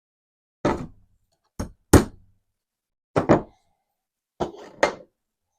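Seven sharp taps, several in quick pairs, of a small hammer on a punch, driving a stubborn hammer pin out of an AR-15 lower receiver.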